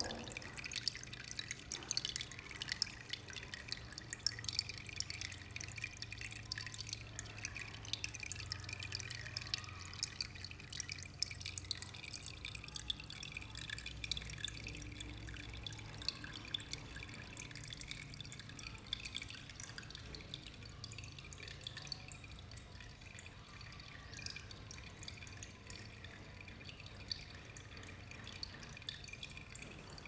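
Water from a DIY plastic-bottle waterfall filter dripping and trickling through its holes into the aquarium below: a steady patter of many small drips and splashes.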